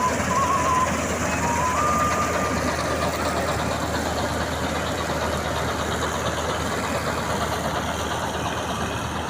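Tractor engine running steadily under harvest work. A short warbling beep sounds in the first second, and a higher steady tone holds for about a second around two seconds in.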